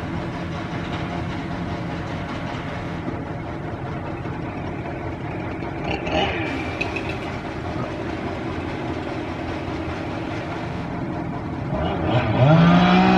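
Tree-crew machinery: an engine runs steadily, and about twelve seconds in a chainsaw revs up loud and keeps running.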